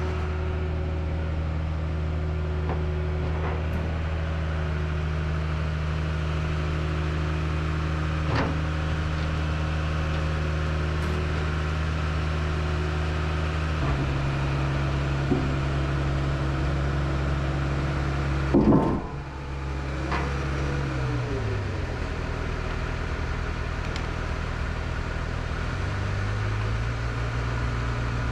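Terex Demag AC200 crane's diesel engine running steadily, with its note shifting to a new pitch partway through. About two-thirds of the way in there is a short loud noise, after which the engine note falls, and it settles at yet another pitch near the end.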